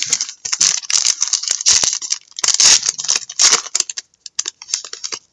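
Trading cards being handled and slid across one another: a quick, irregular run of scrapes and flicks that thins out near the end.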